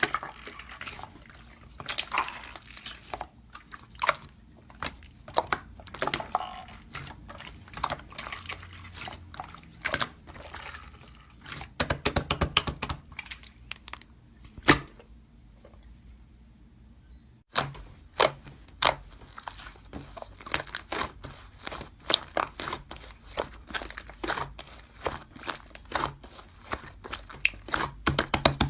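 Slime being pressed, squished and stretched by hand, giving rapid sticky clicks and pops. There is a quieter pause of a couple of seconds just past the middle.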